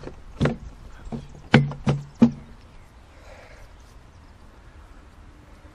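Five hollow knocks of white plastic PVC drain pipe fittings being knocked together and set in place, four of them sharp, all within the first two and a half seconds.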